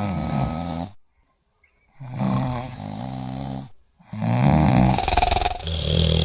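A person snoring loudly, three long snores with short breaks between them, and a steady musical tone comes in near the end.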